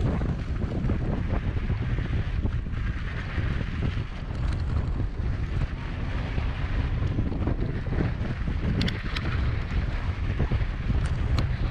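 Wind buffeting the microphone while cycling at speed, a steady low rumble, with a few brief clicks near the end.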